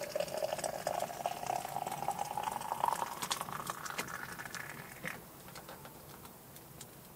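Water poured into a container, with a ringing pitch that rises steadily as the vessel fills. It stops abruptly about five seconds in.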